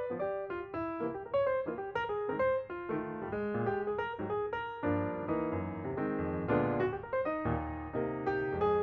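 Background music: a piano melody over chords, notes struck at a lively pace.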